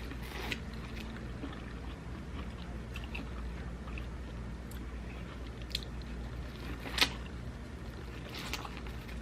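A person eating close to the microphone: quiet chewing with a few sharp wet mouth clicks and smacks, the loudest about seven seconds in.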